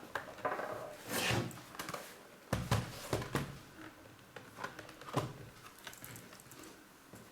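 Handling knocks and clicks on a plastic laptop as it is set up and switched on, about a dozen short irregular knocks, fainter after about five seconds.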